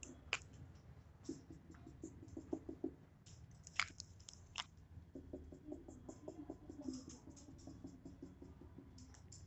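Dry-erase marker drawing short hatch strokes on a whiteboard: faint runs of quick squeaky scratches in two spells, with a few sharp clicks between them.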